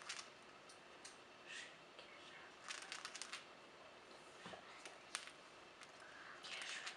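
Cockatiel grinding its beak: faint scratchy creaking in short clusters, the strongest about three seconds in and again near the end, with a single sharp click in between. Beak grinding is the sound of a relaxed, drowsy cockatiel.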